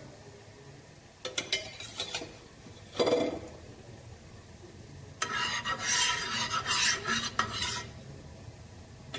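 Oil being spread over a hot flat griddle (tawa) with a plastic spatula: a few short clicks and knocks, then about two and a half seconds of scraping and rubbing across the metal surface.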